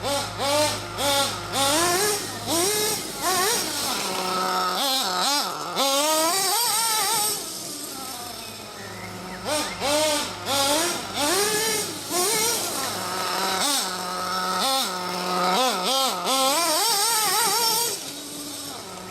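Nitro RC buggy's RB K10 glow engine revving hard in repeated short bursts, the pitch sweeping up and down with the throttle. It drops back to a steady idle a few times between runs.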